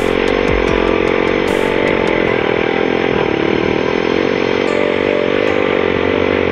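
Motorcycle engine running steadily while the bike rides along, heard loud and close from a camera mounted on the motorcycle itself.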